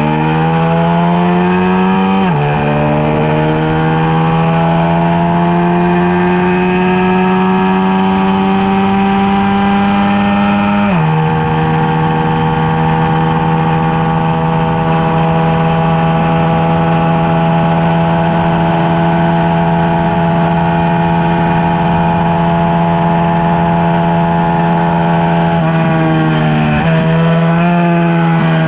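Yamaha LC135 single-cylinder four-stroke engine, bored out to 150cc, running hard at high revs on track. Its pitch climbs steadily and drops sharply with upshifts about two seconds in and again about eleven seconds in. It then holds high for a long stretch before changing pitch several times near the end.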